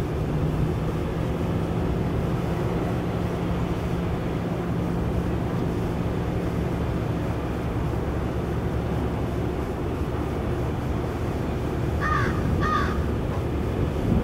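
Engine of a fishing boat running steadily as it comes in under way, with a steady rush of water and wind. Two short gull calls near the end.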